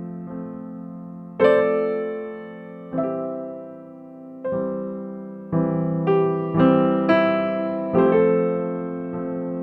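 Background music of struck chords that fade after each strike. A new chord comes every second or two, closer together in the second half.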